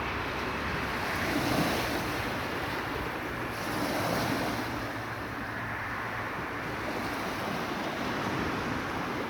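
Sea waves surging and breaking on the shore in a continuous wash of surf, swelling twice, at about a second and a half and again at about four seconds.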